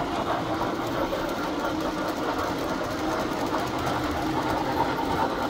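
Tinplate model train running past on the layout's track: its passenger cars rolling, with a steady mechanical rattle and motor hum.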